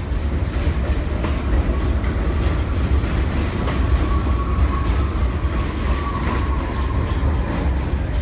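R32 subway cars rolling past on elevated track: a steady low rumble with scattered clicks of wheels over rail joints, and a faint whine that drifts slightly lower through the middle.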